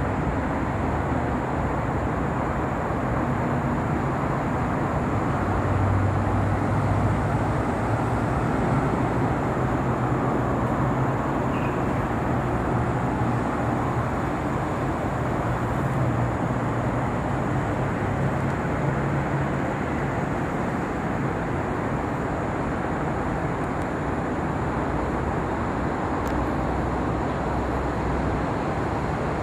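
Steady hum of road traffic, with a lower engine drone that grows stronger about six seconds in.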